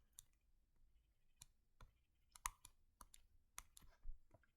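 Faint, short clicks at irregular spacing, about a dozen, from working a computer's input while drawing on screen.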